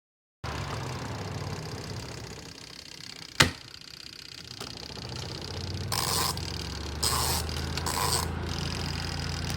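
Small motor of a ZenStyle compact twin-tub washing machine running with a steady low hum. A single sharp click comes about three seconds in, and three short swishes follow near the end.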